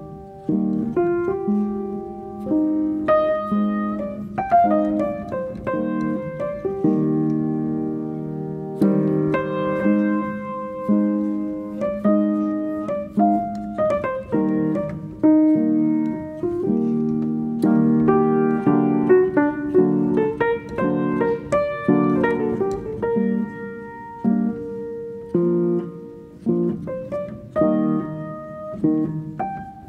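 Piano music: a melody of struck notes over chords, each note fading after it is struck.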